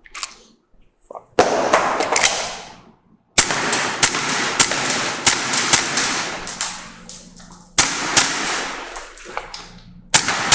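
Kizuna Works BSK43 airsoft pistol firing fast strings of sharp popping shots, each string starting suddenly, about four strings in all.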